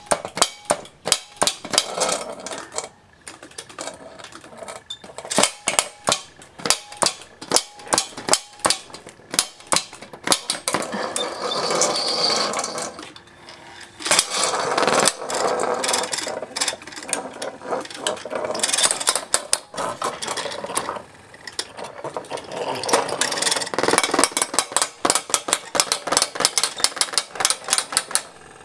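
Two robots built from old printers, driven by printer motors and plastic gears, whirring and grinding as they push against each other, with many sharp clacks and knocks of sheet metal and plastic. The clacks come in quick runs throughout, with longer stretches of steadier grinding in between.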